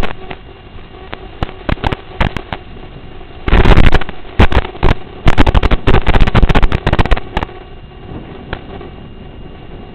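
3-inch FPV quadcopter's motors whining steadily, recorded with badly distorted audio: sharp crackling clicks, then loud crackling, clipping stretches from about three and a half to seven and a half seconds in.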